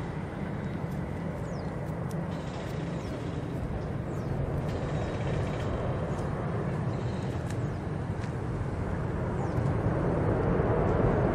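Boeing 777-346 airliner's jet engines roaring steadily as it rolls out and slows on the runway just after touchdown, growing louder near the end.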